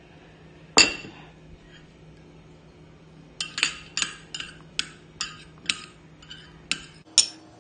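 Utensil clinking against a glass bowl of chopped red onion while the sauce is stirred: one loud ringing clink about a second in, then a run of about ten quicker clinks, two or three a second, near the end.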